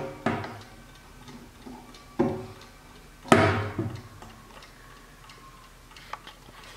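1960s Hermle mantel clock chiming: three ringing strokes, the loudest about three seconds in, each dying away slowly, followed by the movement's faint ticking.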